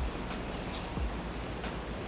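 Steady outdoor background hiss with a low rumble, and three faint soft knocks.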